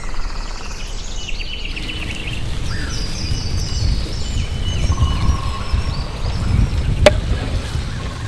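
Birds chirping over a steady low rumble, with one sharp knock about seven seconds in.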